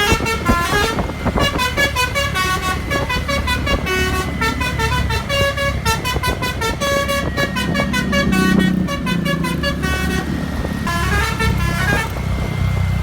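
Basuri multi-tone 'telolet' air horn on a bus playing a fast tune of short notes, with a brief break just past ten seconds and then a quick rising run of notes. The bus engine runs underneath.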